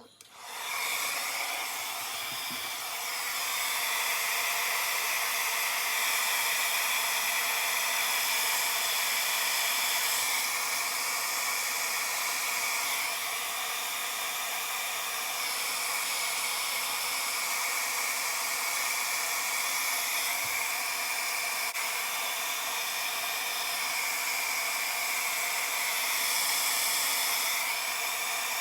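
Handheld blow dryer running steadily on the cool setting, a continuous high hiss of air with a faint whine, switched on about half a second in. The cool air is drying the wig glue so the closure wig's lace sticks to the skin.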